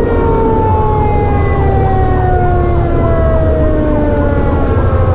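Fire truck sirens heard from inside the cab. One siren's tone winds slowly down in pitch, and about a second and a half in a second siren joins, rising and falling quickly over and over. Underneath runs the steady rumble of the truck's engine.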